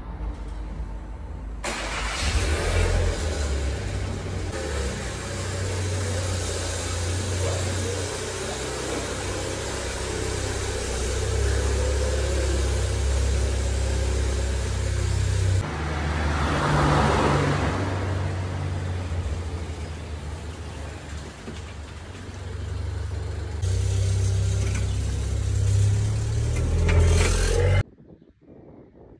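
Car engine running, its revs rising and falling, cutting off abruptly near the end.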